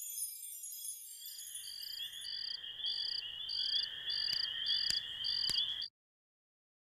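Crickets chirping: a steady high trill with short chirps about twice a second, coming in as a tinkling chime fades out about a second in. It cuts off abruptly near the end.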